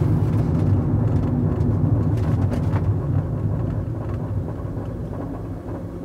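Road and drivetrain noise heard inside a 2009 Fiat Doblo cargo van's cabin as it slows down: a steady low rumble that fades gradually, with a few faint ticks and rattles.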